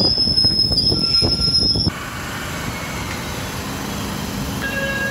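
MBTA Orange Line subway train running past the platform: steel wheels squealing in a steady high whine over a rumble, with sharp clacks from the rails. About two seconds in, the whine stops suddenly and a quieter, even rumble of the moving cars goes on.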